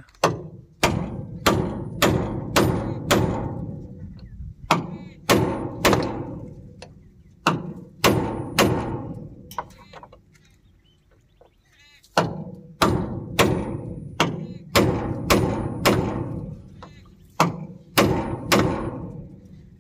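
Hammer blows on a steel drift held against a shaft and bearing hub, knocking the bearing out for replacement. Sharp metal-on-metal strikes that ring briefly, in quick runs of several blows each, with a pause of about two seconds near the middle.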